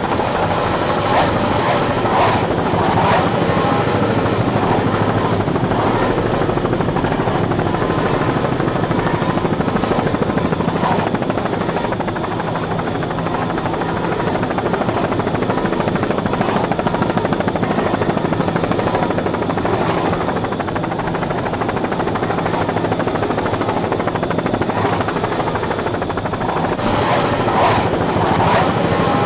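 Loud, steady engine noise from the race, with no change in level.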